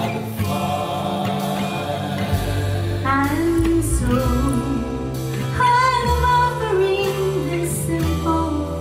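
A woman singing a slow Christmas song to acoustic guitar accompaniment.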